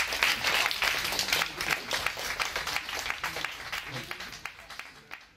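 Audience applause of many irregular hand claps after a band's song, with a few voices mixed in, fading steadily away until it is almost gone at the end.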